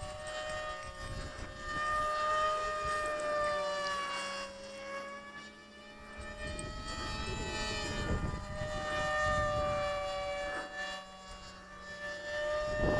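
Electric motors and propellers of radio-controlled model planes whining in flight, the pitch drifting slowly up and down as they fly around. Wind buffets the microphone now and then.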